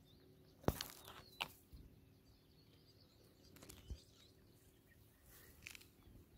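Faint, short bird chirps over quiet outdoor ambience, broken by a few sharp crackles of dry grass, the loudest under a second in.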